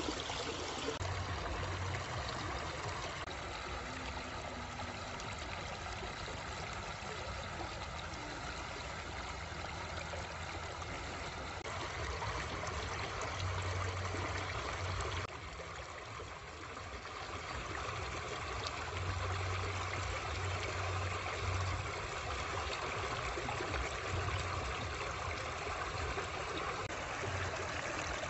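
Shallow stream rushing over rocks, a steady wash of running water that dips briefly about halfway through.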